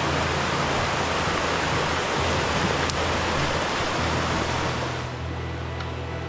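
Mountain creek rushing over rocky rapids: a steady, full rush of water that eases a little about five seconds in.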